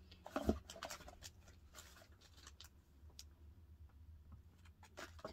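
Faint handling noises: scattered light taps, clicks and rustles of a small cardboard product box and packaging being picked up and turned over, with a louder knock about half a second in.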